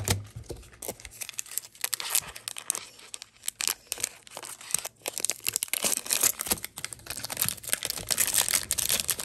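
Foil wrapper of a Pokémon Brilliant Stars booster pack being torn open and crinkled by hand: a run of crackling and crinkling with many sharp little clicks, busier and louder near the end.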